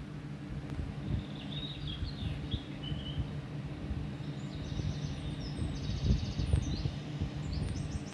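Birds chirping and trilling in high, quick notes over a steady low rumble.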